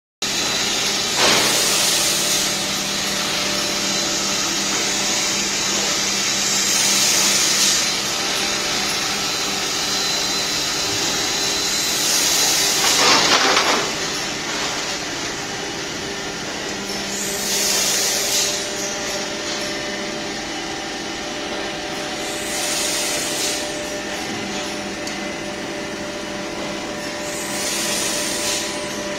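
Plastic injection moulding machine running: a steady mechanical hum, with a loud hissing burst about every five seconds.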